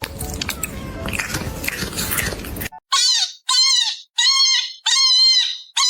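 Young kitten mewing, five short high-pitched cries each about half a second long, repeated every half second or so, after a stretch of noise lasting nearly three seconds.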